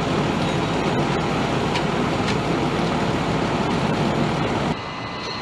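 A vehicle engine running steadily, which drops suddenly to a quieter hum near the end.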